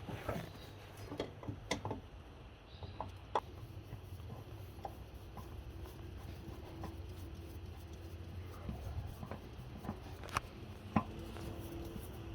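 Scattered faint clicks and taps over a low steady hum: small parts and tools being handled during an oil change.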